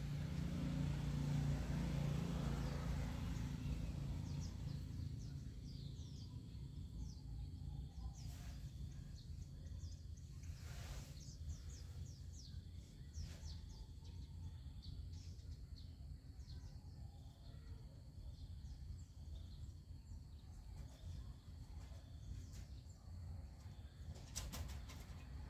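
Outdoor ambience: small birds chirping repeatedly, short high calls, over a steady low rumble. A louder noise in the first few seconds fades away.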